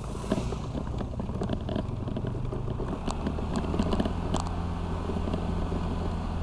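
Honda Vario 125 scooter's single-cylinder engine running steadily while riding, its note shifting about three seconds in. Many short knocks and rattles come from bumps on a badly broken road.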